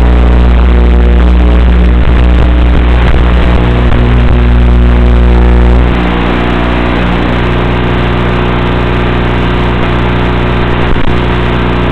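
Loud, steady buzzing hum with hiss from an FPV drone's onboard audio over an analog 5.8 GHz video link. The deep low rumble drops away about six seconds in, and the buzz and hiss carry on.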